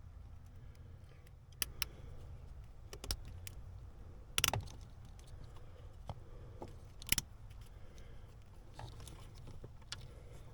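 A few scattered sharp clicks and light clatters of small hard objects being handled, the loudest about four and seven seconds in, over a steady low hum.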